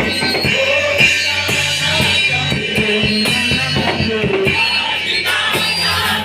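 Worship band music with a drum kit and guitar.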